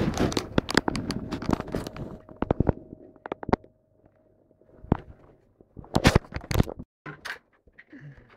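A Bichon Frise and a young German shepherd play-fighting: irregular clusters of sharp clicks, knocks and scuffling, with short pauses between the bouts.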